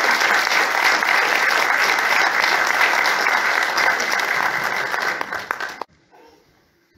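A church congregation applauding steadily and loudly, which cuts off abruptly about six seconds in.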